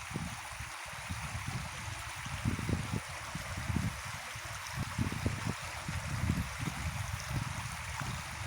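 A stream running with a steady rushing wash of water, over an uneven low rumble that swells and dips.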